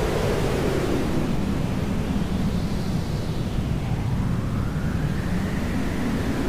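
Hair dryer blowing steadily, its motor and airflow making a continuous white-noise hiss. The hiss slowly shifts in colour, with faint sweeps that rise and fall in pitch.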